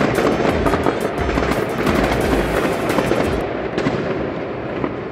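Fireworks going off in a dense, continuous barrage of bangs and crackling.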